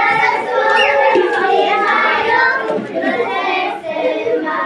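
Many young children singing together, with their voices overlapping.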